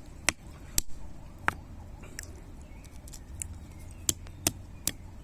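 A jelly palm fruit being broken open to get at its seed: scattered sharp clicks and cracks, about eight of them, irregularly spaced, over a steady low background hum.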